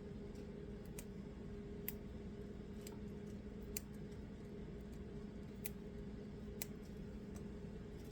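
Short sharp clicks from kitchen prep work, about once a second and unevenly spaced, over a steady low electrical hum.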